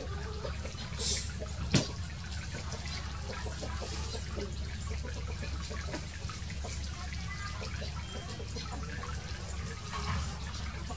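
Water trickling and lapping in a shallow frog pen, over a steady low hum, with one sharp click just before two seconds in.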